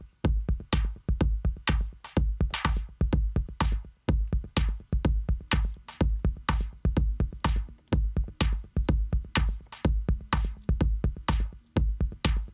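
Electronic drum loop playing from a Native Instruments Maschine groovebox: a steady kick about twice a second with sharp clicky percussion hits layered between. The pattern has a brief gap about every four seconds as the loop comes round.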